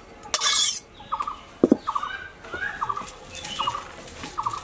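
A metal spatula scrapes fish curry out of an aluminium karai into a metal bowl, with a sharp ringing clank of metal on metal about a second and a half in. Behind it a bird calls in short repeated double notes, about one every two-thirds of a second.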